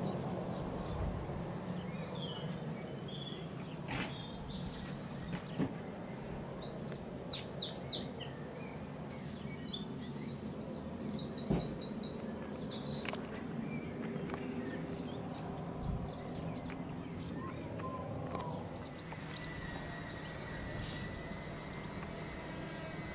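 Small birds singing, loudest in a run of quick high chirps from about six to twelve seconds in, over the faint, fading rumble of a Dassault Falcon 20's jet engines.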